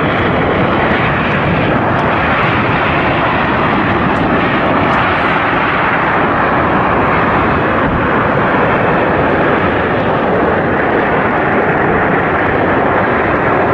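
Jet airliner's engines running at close range, a loud steady rush of noise with no separate impacts.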